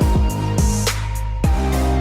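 Intro music with a steady drum beat and sustained bass notes.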